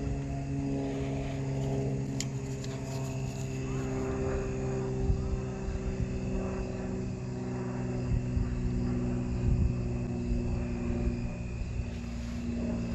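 Steady mechanical hum made of several held low tones, with some of the tones changing about two-thirds of the way through. Irregular low rumble sits under it.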